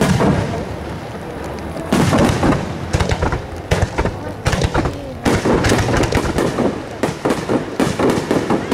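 Aerial fireworks shells bursting in quick succession: a heavy bang about two seconds in, then a dense run of many rapid crackling reports from about five seconds on.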